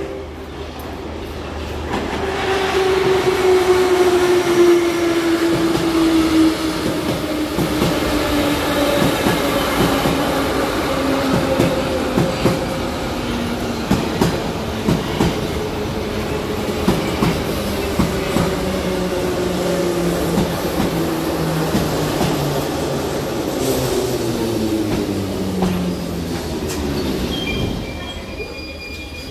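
Moscow Metro train pulling into a station and braking. The whine of its traction motors falls steadily in pitch as it slows, over the clatter of wheels on the rails. It is loudest a few seconds in, as the front cars pass, and fades near the end as the train nearly stops.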